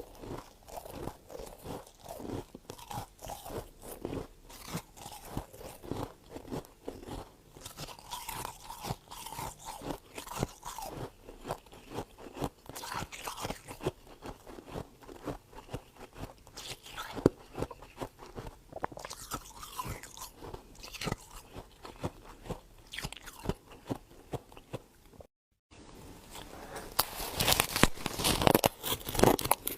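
Close-up crunching and chewing of freezer frost, a dense run of small crackling crunches. About 25 s in the sound cuts out briefly, and the crunching comes back louder and denser.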